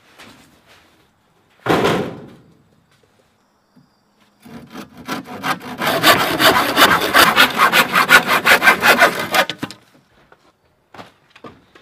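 Hand saw cutting through a wooden board in fast back-and-forth strokes for about five seconds, starting about four and a half seconds in. Before it, a single heavy thump.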